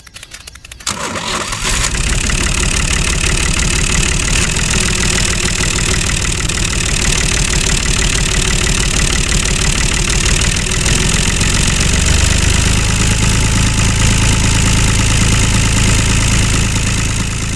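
Model tractor engine starting about a second in, then running steadily; a deeper hum joins in past the middle.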